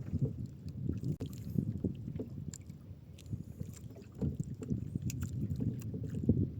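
Water slapping and lapping irregularly against the hull of a small fishing boat, low and uneven, with a few light clicks.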